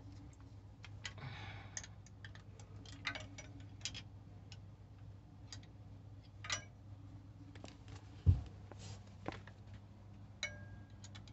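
Scattered, irregular metallic clicks of a wrench tightening new glow plugs into a Westerbeke 12-D diesel's cylinder head, over a steady low hum, with one loud low thump about eight seconds in.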